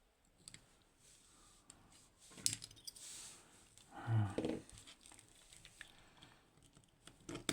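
Small metal tools clicking and scraping against a lock cylinder while a retaining clip is pried and bent out, with a short scraping hiss about three seconds in. A brief low vocal grunt a little past four seconds.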